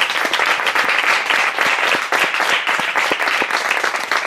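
An audience applauding: many people clapping together, dense and steady.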